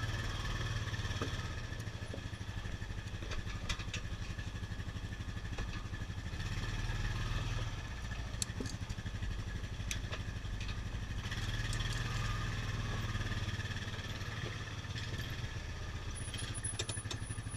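Small lifeguard utility vehicle's engine running steadily, with scattered clicks and rattles.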